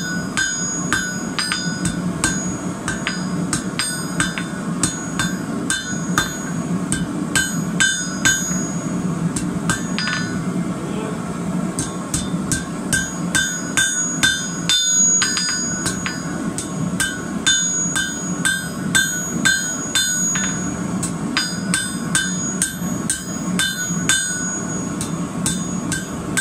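Blacksmith's hammer striking a red-hot bar on an anvil to draw it out, in a steady run of blows about two to three a second. Each blow rings from the anvil. The hammering pauses briefly about nine seconds in, then resumes.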